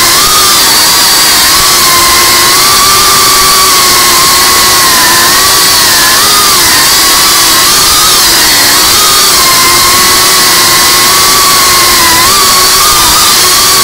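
5-inch FPV quadcopter's brushless motors and propellers whining loudly over heavy rushing hiss, as heard from the camera on board; the whine's pitch dips and climbs again every second or two with the throttle.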